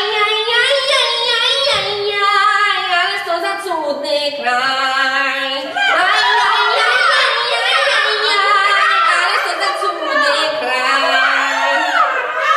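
A song sung by voices alone, with no instrumental backing, its melody sliding up and down without pause.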